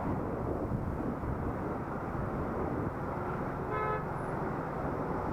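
Steady wind and road rumble on a helmet-mounted action camera while riding, with a short vehicle horn toot a little under four seconds in.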